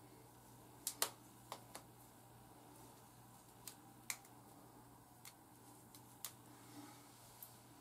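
Small rubber bands being fastened onto locks of hair by hand, with fingernails clicking: about ten scattered short, sharp clicks and snaps, the loudest about a second in, over a faint steady room hum.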